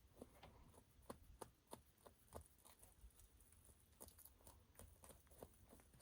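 Near silence with faint, scattered clicks and taps from a knife and hands working on a grouse carcass.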